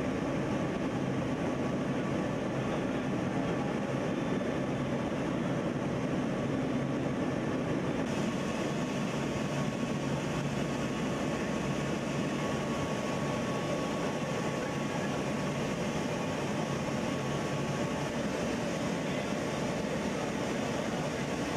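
Steady drone of a C-17 Globemaster's four turbofan engines and airflow, heard from inside its cargo hold, with a faint steady whine over it.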